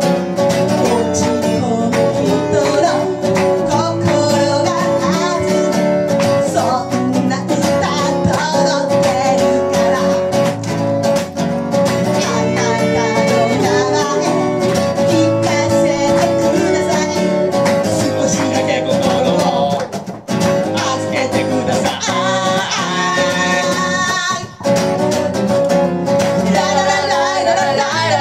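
Blues-rock song played live on guitar, with a woman singing over it.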